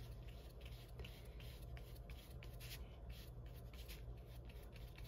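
A flat paintbrush scratching back and forth as it spreads thick acrylic paint over textured paper: faint, quick, uneven strokes, several a second, over a low steady hum.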